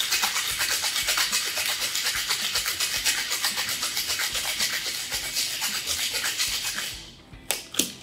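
Ice rattling hard inside a metal cocktail shaker being shaken in a fast, even rhythm, mixing and diluting a cocktail. The shaking stops about a second before the end, followed by a couple of sharp metal clicks.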